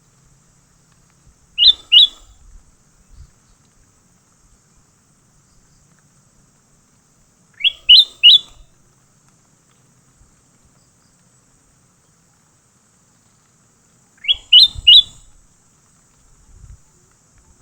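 A bird calling three times, about six seconds apart, each call two or three quick sharp notes sweeping upward, over a faint steady insect hum.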